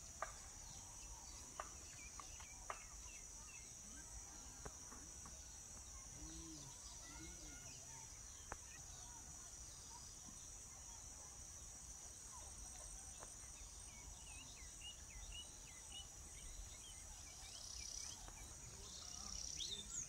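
Faint outdoor garden ambience: a steady high chirring of insects with scattered small bird chirps, and two low coos about six and seven seconds in.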